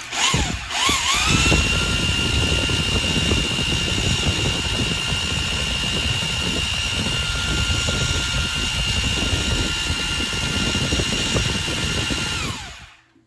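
Electric drill turning an oil-pump priming tool in a 311 small-block Ford, spinning the oil pump to prime the engine with break-in oil. After a stuttering start it spins up to a steady whine under load, runs for about eleven seconds while the pump builds about 75 psi, then winds down and stops near the end.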